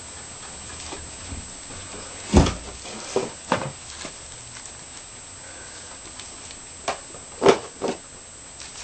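A kitten knocking about inside a cardboard box: about six separate knocks and bumps, the loudest a deep thump about two and a half seconds in and a sharp knock about seven and a half seconds in.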